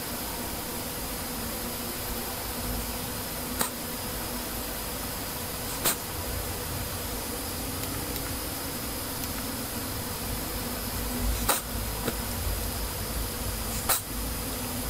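Steady electrical buzz, the hum of a computer picked up by the recording microphone, with a handful of sharp mouse clicks.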